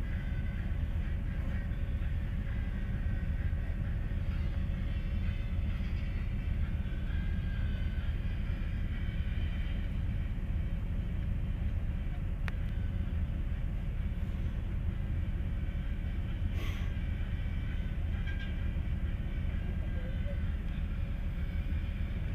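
Inside a MAZ 203 city bus on the move: a steady low rumble of engine and road noise, with faint squeaks and rattles above it and a single sharp click about halfway through.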